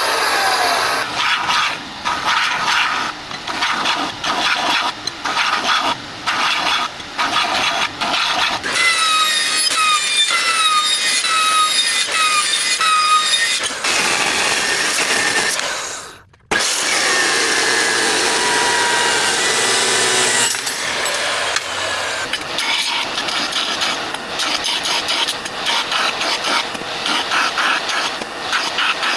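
Power tool cutting and grinding steel, a loud, rough, continuous scraping with a run of repeated falling squeals partway through. It cuts off suddenly about halfway and starts again at once.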